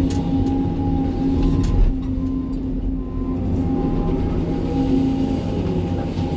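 Sany 305 excavator's diesel engine and hydraulics running steadily while working, a droning hum with a higher held whine and a few light clicks.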